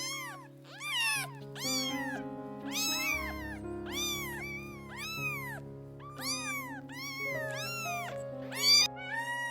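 A cat meowing over and over, a quick string of short meows that each rise and fall in pitch, about one every half second to second, with background music underneath.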